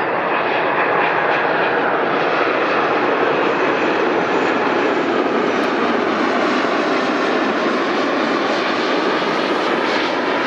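Wide-body jet airliner's engines, a loud, steady rush of jet noise.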